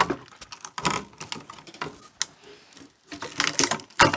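Channel lock pliers wrenching a transformer off a CRT monitor's circuit board: a run of sharp clicks and cracks, thinning out to a lull past the middle, then a fresh flurry near the end.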